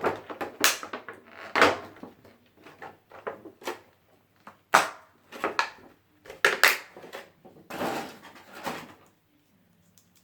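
Irregular plastic clicks, knocks and rustles from Beyblade tops and their packaging being handled and fitted together. They stop about a second before the end.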